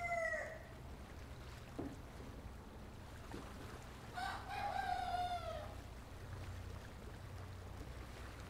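A rooster crowing twice: one crow tails off about half a second in, and a second long crow comes about four seconds in, dropping in pitch at its end. A faint low hum runs underneath.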